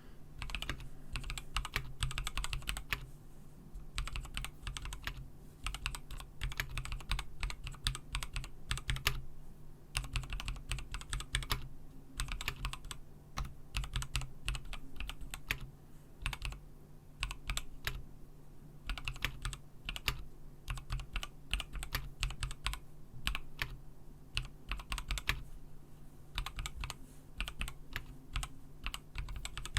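Typing on a GAS67 mechanical keyboard with Gateron Milky Yellow Pro linear switches and PBT keycaps: a steady stream of keystroke clacks in bursts with short pauses.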